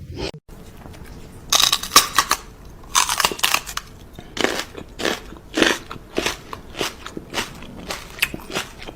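Loud, crisp crunching of something hard being bitten and chewed, irregular crunches about once or twice a second, starting about a second and a half in.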